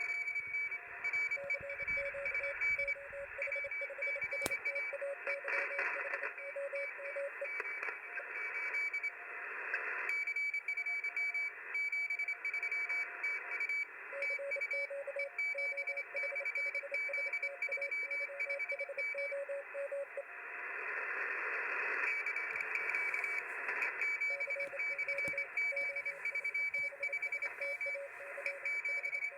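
Shortwave receiver audio from a web-SDR: Morse code (CW) signals keyed on and off as short and long beeps over steady band hiss, with two stations at once, one at a higher pitch and one at a lower pitch that comes and goes.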